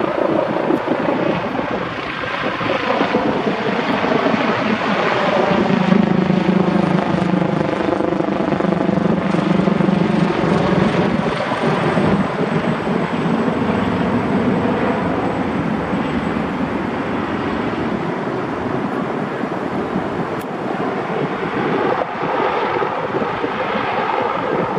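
AgustaWestland AW139 twin-engine helicopter flying low overhead: a continuous rotor and engine sound whose tone sweeps as it passes over. It is loudest about six to ten seconds in, then eases off gradually as the helicopter moves away.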